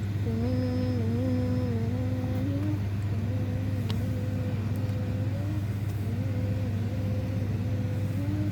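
A vehicle engine drones with a slightly wavering pitch over a steady low rumble.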